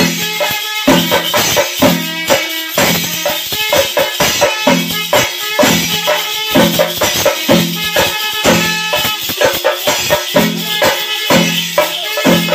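Kerala temple procession percussion: drums beaten in a steady repeating pattern, a deep pitched stroke about every half second, under constant metallic jingling and rattling.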